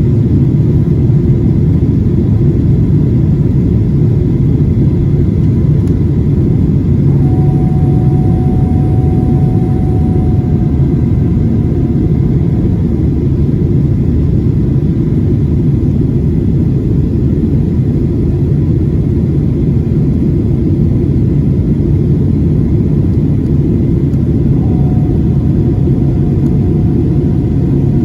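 Steady, loud low rumble of a Boeing 737-700's jet engines and airflow heard from inside the passenger cabin, with a faint thin whine that comes in twice.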